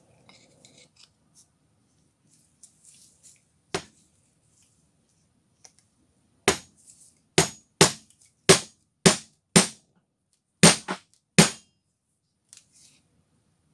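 Sharp knocks: one about four seconds in, then eight in quick succession over the next five seconds, as the wooden handle of a club hammer is seated in its steel head.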